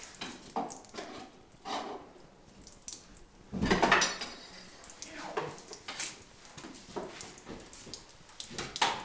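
Irregular metal clanks and knocks as tools and parts strike the Ford 400 V8 and its engine bay while it is worked loose. The loudest clatter comes about halfway through, and a sharp knock follows near the end.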